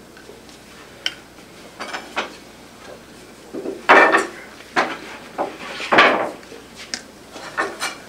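Flat wooden boards being handled, knocked against each other and set down on a table saw top: a string of irregular knocks and clatters, loudest about four and six seconds in.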